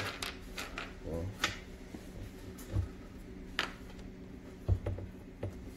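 Bolts being pulled out of a BMW E30 oil pan and its cork gasket and set down on the workbench: scattered light clicks and taps at irregular intervals, over a faint steady hum.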